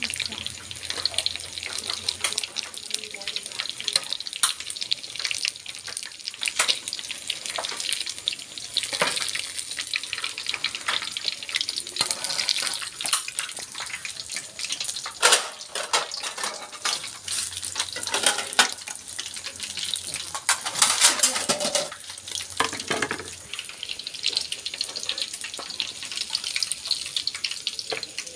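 Battered pipefish deep-frying in hot oil in a pan: a steady crackling sizzle with sharp pops and clicks throughout, busiest about three-quarters of the way through.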